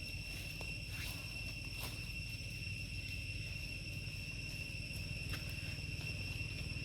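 Steady high-pitched insect drone that does not change, over a low rumble, with a few faint clicks.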